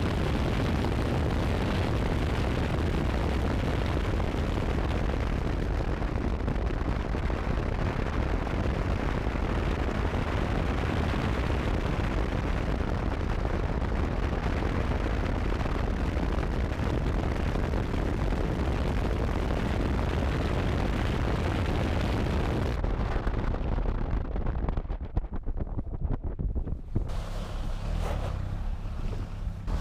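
Heavy wind buffeting on a camera mounted outside a Peugeot 306 turbodiesel, with the engine pulling hard underneath. Near the end the rushing dies down into an uneven low rumble as the car slows.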